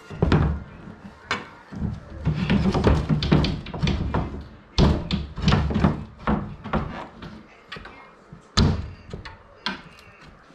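Wooden parts of a Carter's by DaVinci Dakota crib knocking and thudding as the slatted side and frame are handled and shifted into position: a string of irregular sharp knocks and duller thumps.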